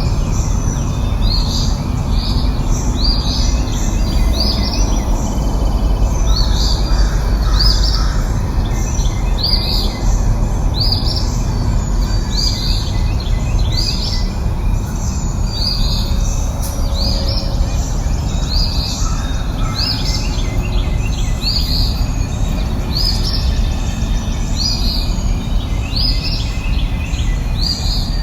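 A bird repeats a short, high, downward-sweeping call about once a second, sometimes two in quick succession, over a steady low rumbling background noise.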